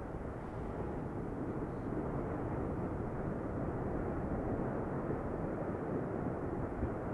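Erupting lava fountain giving a steady, deep rumble with no distinct bursts.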